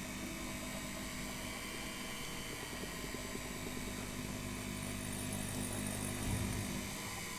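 Potter's wheel motor running with a steady hum as the wheel spins under wet clay being centred by hand, with a brief low thump about six seconds in.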